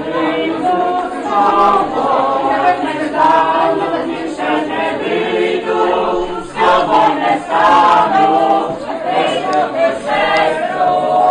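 A group of people singing together unaccompanied, several voices holding long notes in a mixed chorus.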